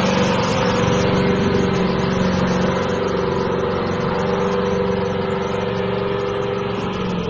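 KAMAZ dump truck's V8 diesel engine running steadily at an even pitch under load while wading, with water churning and splashing around the wheels.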